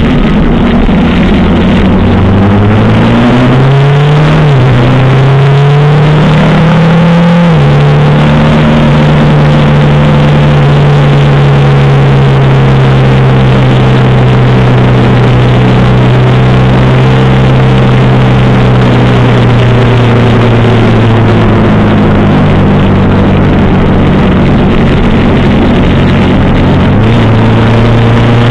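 1985 Suzuki GS700ES inline-four motorcycle engine accelerating with its pitch rising through two gear changes, then running steadily at cruising speed with its note slowly sinking, and stepping up suddenly near the end. Heavy wind noise on the onboard microphone runs under it.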